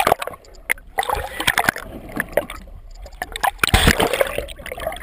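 Water sloshing and gurgling around a camera held just below the sea surface, with frequent sharp clicks and knocks and a louder wash of water about four seconds in.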